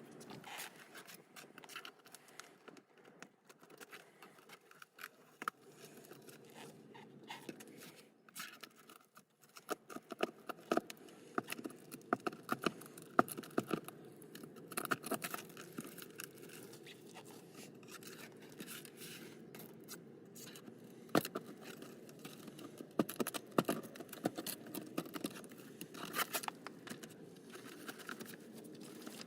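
Irregular small clicks, taps and scraping, the sound of objects being handled close by. They grow denser and louder about a third of the way in.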